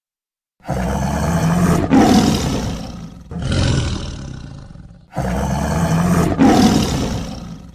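Dinosaur roar sound effect: three loud roars in a row. The first swells again partway through, the second is shorter, and the third repeats the first.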